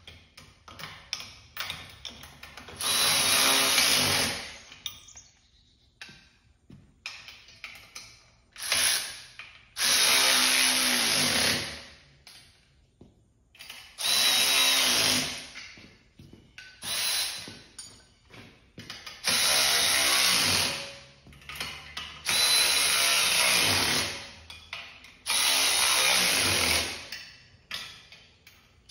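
Cordless drill-driver running in short bursts of one to two seconds, about eight in all, driving in the cart's bolts; its whine drops in pitch as each burst ends. Light clicks and rattles of hardware fill the gaps.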